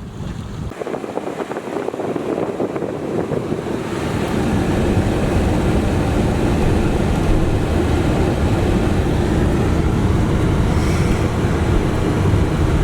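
Wind buffeting the microphone: a loud, steady rushing that grows stronger about four seconds in.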